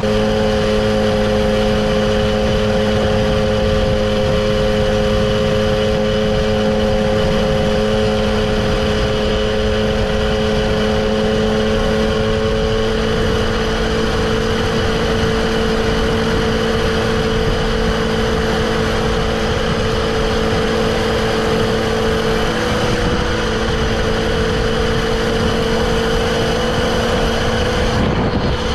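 Two-stroke moped engine running at a steady cruising speed, its pitch shifting slightly a couple of times, over constant wind and road noise.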